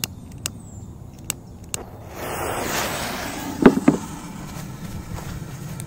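A few sharp clicks, then a K-05 firecracker's fuse hissing for about two seconds as it burns down, with two sharp knocks partway through it.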